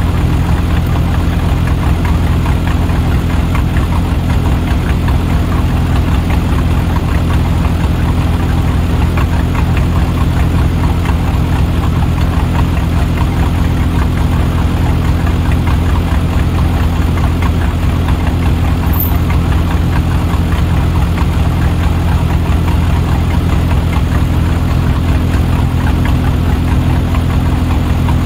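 Diesel engine of heavy equipment running steadily at an even speed, with no revving.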